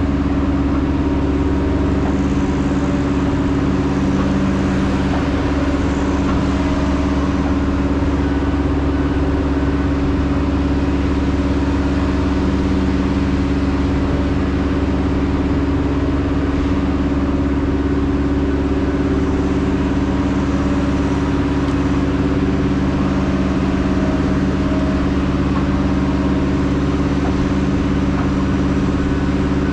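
Heavy logging machine's diesel engine running at a steady speed, a constant low hum with a few fixed tones and no revving up or down.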